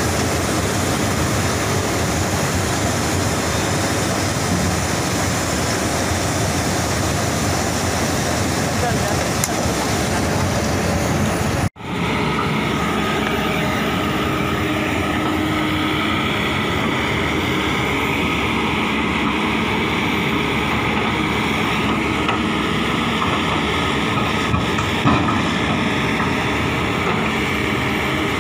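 Kobelco excavator diesel engine running under load as a Kobelco 380 crawls off a trailer on its steel tracks. About twelve seconds in, the sound cuts off abruptly and gives way to another Kobelco excavator working while sunk in mud, its engine running with several steady humming tones.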